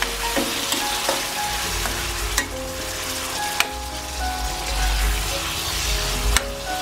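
Beef livers sizzling in hot oil in a stainless steel frying pan while a metal spoon stirs them, with a few sharp clicks of the spoon against the pan.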